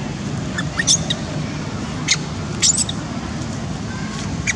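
Baby long-tailed macaque crying in short, sharp, high-pitched squeals, about four times, over a steady low background rumble.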